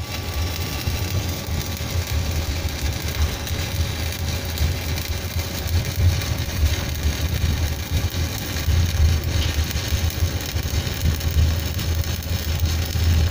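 Stick (shielded metal arc) welding arc crackling and sizzling steadily as a weld bead is run on steel, over a steady low drone.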